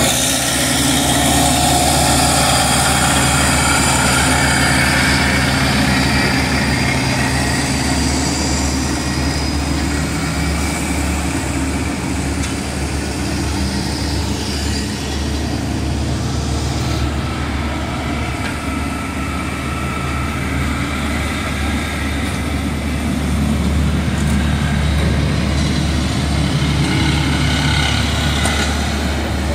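Diesel engines of a Dynapac road roller and an asphalt paver running steadily, a constant low drone, a little softer in the middle.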